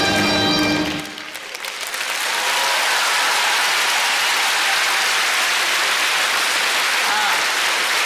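Orchestral music ends on a held chord about a second in. After a brief lull, a large audience breaks into applause that holds steady.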